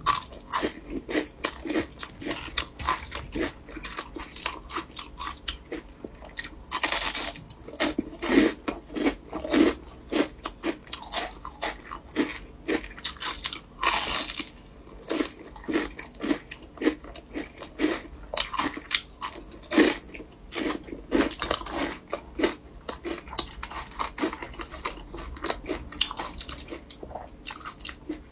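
Biting and chewing a crisp, flaky durian pastry: dense crunching and crackling throughout, with the loudest crunches about seven and fourteen seconds in.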